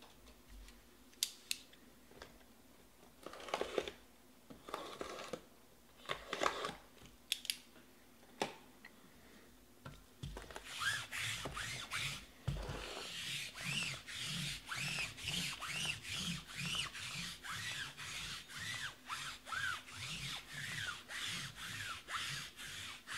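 Scattered rubs and light clicks of hands on sealed trading-card boxes and the tabletop. About ten seconds in, these give way to steady back-and-forth rubbing strokes, about two a second.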